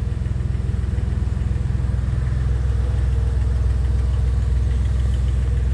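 A 1998 Porsche 911 Carrera's (996) 3.4-litre flat-six idling steadily.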